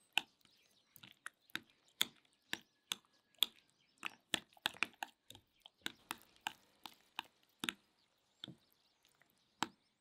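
Metal utensil mashing and stirring a thick, wet green mixture in a glass bowl, clicking against the bowl in quick, irregular strikes about three times a second.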